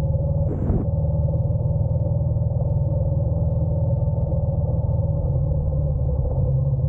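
Honda NC750X DCT's parallel-twin engine running steadily under way, with a short hiss about half a second in.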